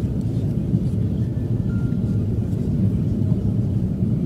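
Steady low rumble of an airliner's cabin in flight: jet engine and airflow noise during the descent to land.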